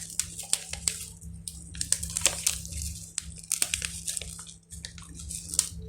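Scattered light clicks, crackles and wet squishes of seasoning being sprinkled and handled over raw fish, over a faint steady low hum.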